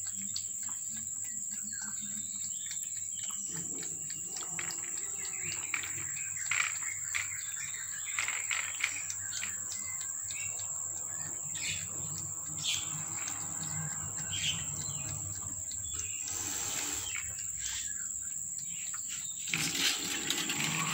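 Outdoor ambience: a steady high insect drone with birds chirping now and then. There are two brief noisy bursts, about two thirds of the way through and again near the end.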